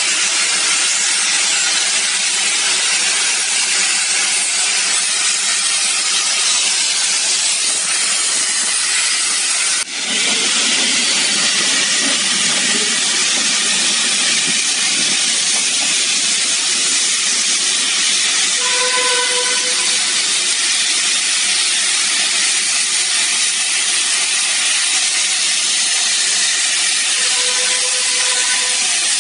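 Class B1A steam locomotive hissing steadily and loudly with escaping steam, with a brief dip about ten seconds in. Two short, faint whistle-like tones sound in the background, about two-thirds of the way in and again near the end.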